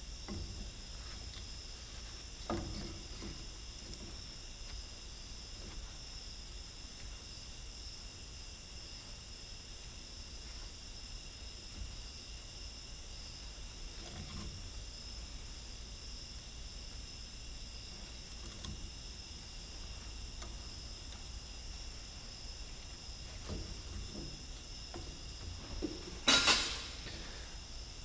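Faint, scattered clicks of metal and plastic parts as a Cat D3C dozer's pilot control joystick handle is worked by hand. Under them runs a steady high-pitched background whine of several tones. A short burst of noise comes near the end.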